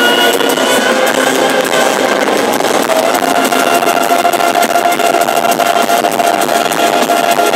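Symphonic metal band playing live at concert volume, a dense wall of guitars and orchestral backing with a steady held note coming in about three seconds in.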